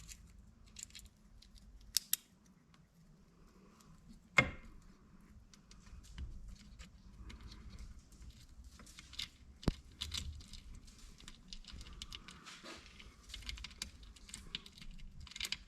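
Small metal engine parts being handled and sorted: faint clinks, light rattling and rustling. There are a few sharper metallic clicks, the loudest about four seconds in and another near ten seconds.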